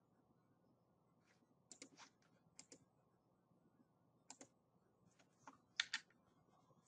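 Near silence broken by a scattering of faint, short clicks in small clusters, the loudest pair near the end.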